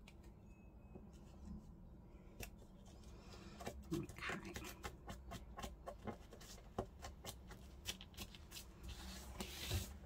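Light taps, clicks and paper rustling of craft materials being handled on a desk. They grow busier after about two seconds, with a longer rustle near the end.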